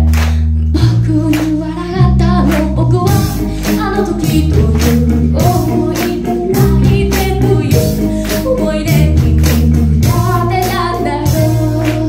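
Live rock band playing: female lead vocals over electric guitar through a Marshall amp, electric bass and a drum kit with a steady beat.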